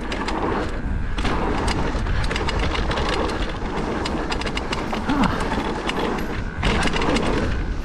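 Haibike AllMtn electric mountain bike riding fast down a dirt trail. A steady rushing rumble of tyres and air runs throughout, with many sharp clicks and rattles from the bike jolting over bumps.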